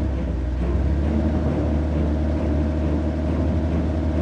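Engine sound effect dubbed over a toy excavator as it drives up: a heavy machine's engine running with a steady low hum.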